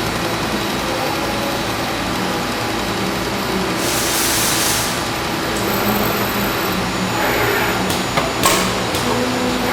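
Automated laser-welding equipment with automatic part loading running with a steady machine hum. About four seconds in there is a burst of hiss lasting about a second, and near the end a few sharp clicks and a short hiss.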